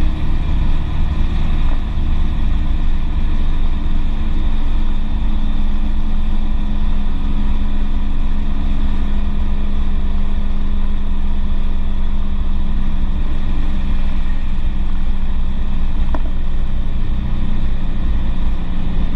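Volkswagen Fusca (Beetle) air-cooled flat-four engine running at a steady highway cruising speed, heard from inside the cabin, its drone holding an even pitch over road and wind rush.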